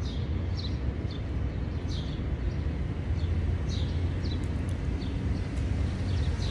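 Steady low rumble of street traffic with birds chirping over it: short, falling chirps repeating about every half second.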